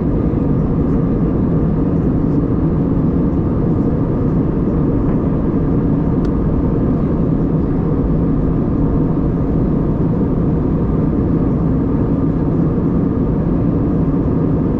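Jet airliner cabin noise in flight: a steady low roar of the engines and the air rushing past the fuselage, unchanging in level.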